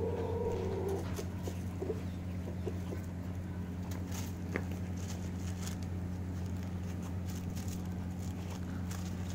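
Puppies playing and scuffling, with scattered light crackles and rustles as they tussle over a plastic bag, over a steady low hum. A short pitched call sounds in the first second.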